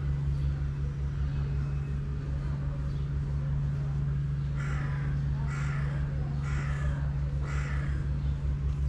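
A crow cawing four times, about one caw a second, over a steady low hum.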